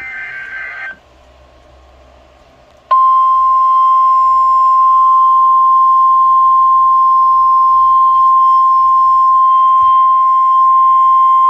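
A short burst of screeching EAS SAME data tones (the tail of an alert's digital header). About three seconds in, the NOAA Weather Radio 1050 Hz warning alarm tone starts: a single loud steady tone that holds unchanged to the end, signalling that a warning is about to be broadcast.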